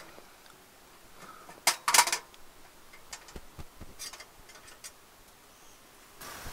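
A tent-Mark Wood Stove M's stainless door and rotating air-damper disc being handled: two sharp metal clanks about two seconds in, another about four seconds in, and lighter metallic ticks in between. A steady hiss starts near the end.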